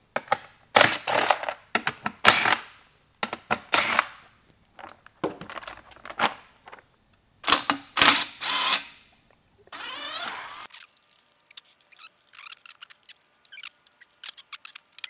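Cordless power driver running in a series of short bursts as it backs out the bolts holding a go-kart seat and its bracket. In the last few seconds come light metallic clicks and clinks as bolts and parts are handled.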